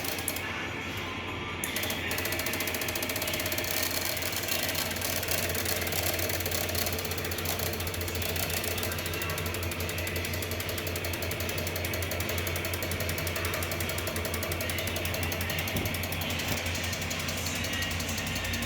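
Corsa 1.6 MPFI engine running steadily during an ECU test, with a rapid, even mechanical ticking over a low hum.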